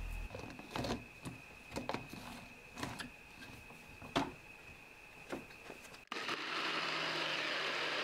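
Scattered plastic clicks and knocks as dates go into a personal blender cup and its blade base is screwed on. About six seconds in, the blender starts and runs steadily, blending soaked coconut and water into coconut milk.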